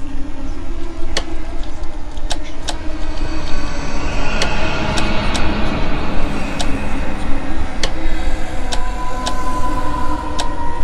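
Dark horror ambience: a continuous low rumble with about ten sharp clicks scattered through it, and a thin steady tone that comes in near the end.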